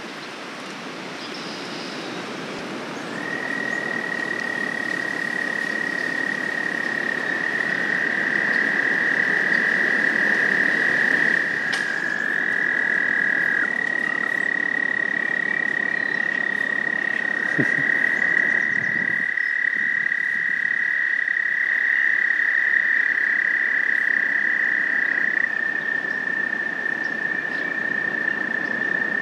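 American toads trilling: one long, steady, high trill begins a few seconds in and holds, and twice a second toad joins at a slightly lower pitch, the two trills overlapping for several seconds each time.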